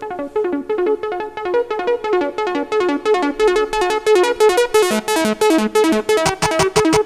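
Electronic dance music: a synthesizer riff of quick repeated notes building up, with the hits coming faster and faster toward the end.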